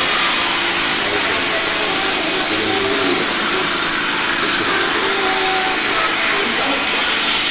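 Horizontal band saw running with a loud, steady whirring noise that holds without a break.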